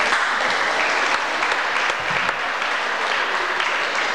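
Audience applauding, an even patter of many hands clapping.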